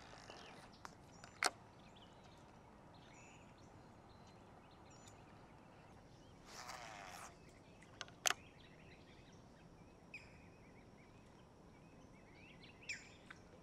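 Quiet lakeside marsh ambience with faint, scattered bird chirps, a couple of sharp clicks about a second and a half in and again near eight seconds, and a short rustling burst about six and a half seconds in.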